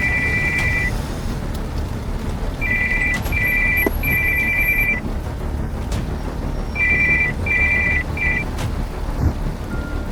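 Electronic two-tone beeping in groups of three, two short beeps then a longer one, recurring about every three to four seconds, over the steady low rumble of a moving car.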